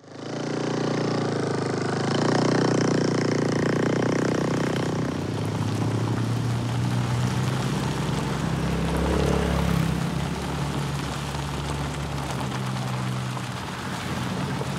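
Mitsubishi Xpander minivan driving along a dirt road: a steady engine hum with tyre and road noise.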